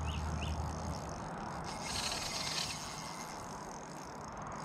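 Light spinning reel's drag giving faint short spells of ticking, about two seconds in, as a big dusky flathead pulls line, over a steady outdoor hiss.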